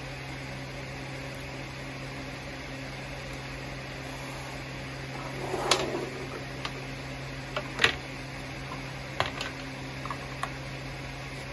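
A steady low hum, like a fan or air conditioner running, with a rustle about halfway through and several sharp clicks and knocks as objects are handled on a table, the loudest click past the middle.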